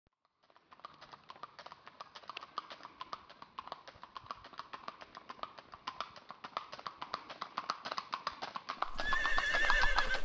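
Horse hoofbeats clip-clopping in a quick, even rhythm, growing steadily louder, then a horse neighs near the end.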